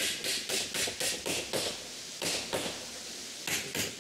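Hammer tapping nails into a wooden molding: quick, light blows about four a second, a run of them, a pause, then more taps near the end.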